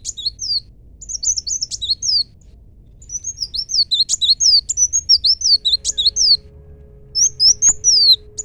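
Koliday songbird singing: phrases of quick, high, falling whistled notes, four bursts separated by short pauses.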